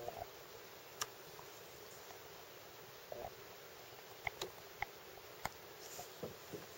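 Quiet paddling of a duck punt on calm water: a few light knocks and taps of the paddle against the boat and small water drips, spread out over a faint hiss.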